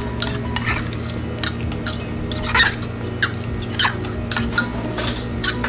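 A steel spoon stirring a wet mutton and spice-paste mixture in an aluminium pressure cooker, scraping and clinking irregularly against the pot. A low steady hum runs underneath.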